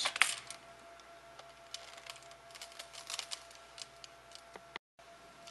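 Faint, scattered small clicks and taps of metal parts being handled: a screwdriver and a steel threaded plug set into a pole tool's base. A faint steady hum lies underneath.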